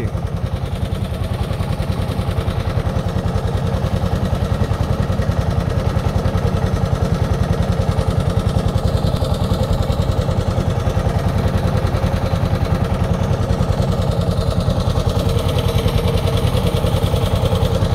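Wooden river boat's engine running steadily with a fast, even beat.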